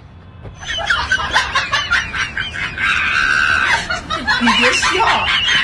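High-pitched laughing and shrieking that starts about half a second in and keeps going, with fast wavering squeals.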